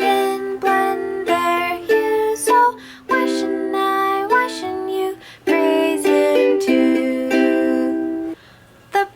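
Ukulele playing a slow children's hymn tune, chords and held notes in phrases, with a brief pause near the end.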